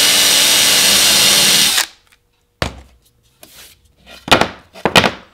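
Electric drill running steadily as a twist bit, reground to a brad-point tip, cuts into melamine-faced particleboard, cleanly by the sense of it. The drill stops about two seconds in. Then come a few sharp knocks and scrapes as the board is handled on the bench.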